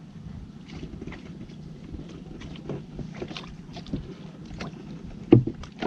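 Small boat working along a shallow channel: light water splashes and drips from the paddle and dip net, scattered small knocks, and one sharp knock about five seconds in.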